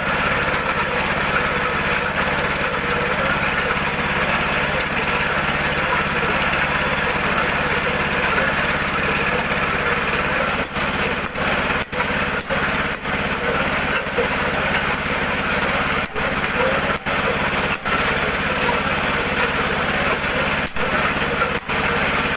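Small stationary petrol engine running steadily at a constant speed.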